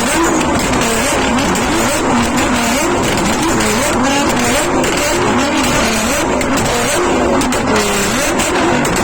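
Nissan GT-R R35's twin-turbo V6 engine being revved over and over, its pitch rising and falling in quick repeated blips.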